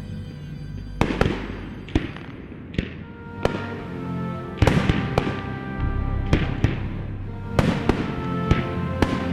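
Fireworks shells bursting in a rapid string of sharp bangs, one or two a second, each dying away in a fading crackle, over background music.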